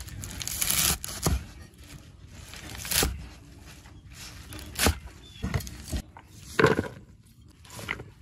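A rustle, then a run of scattered knocks and scrapes, irregularly spaced about a second apart.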